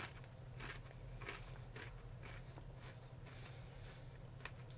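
Faint crunching as a corn tortilla chip is chewed, about two chews a second, over a low steady hum.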